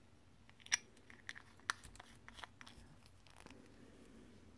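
Small plastic jars of nail glitter clicking and tapping as they are handled and set down: a few scattered light clicks, with a sharper click near the end.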